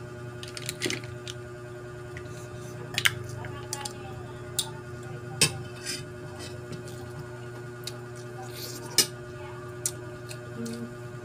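Eating at a table: mussel shells and cutlery clicking and clinking against plates in scattered single knocks, a few louder than the rest, with soft squishy handling of the food. A steady low hum runs underneath.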